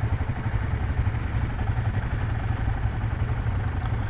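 Royal Enfield Himalayan 450's single-cylinder engine idling steadily at a standstill, a low, fast-pulsing throb.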